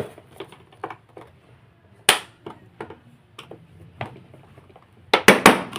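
Plastic housing of a vacuum cleaner being pried apart, giving scattered light clicks, one sharp snap about two seconds in and a quick cluster of loud cracks near the end as press-fit plastic parts come loose.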